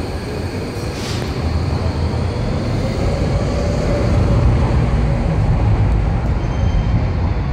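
Docklands Light Railway train moving along the platform: a low, steady rumble of wheels on the rails with a faint motor whine, growing louder toward the middle. There is a short hiss about a second in.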